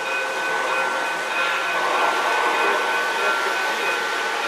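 O-gauge model trains running on the layout: a steady whirring of motors and wheels on track, with a constant high-pitched whine over it.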